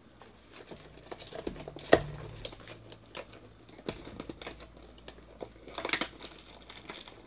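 Hands handling small cardboard boxes of baseball cards: scattered light clicks and rustling of cardboard, with a sharp snap about two seconds in and a short flurry of rustling around six seconds in.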